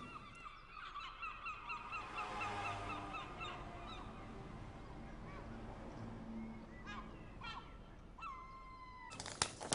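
Faint bird calls: a flurry of quick, repeated, overlapping calls in the first few seconds, a few single calls after that, and one long held call near the end. Just before the end comes a rustle of paper being handled.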